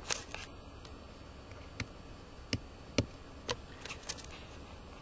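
Computer mouse clicking: a few quick clicks at the start, then single clicks about every half second, and a short run of clicks near the end, over a faint steady hum.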